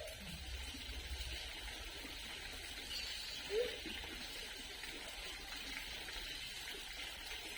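Steady background hiss of an outdoor recording, with a few faint distant calls; one short rising call stands out about three and a half seconds in.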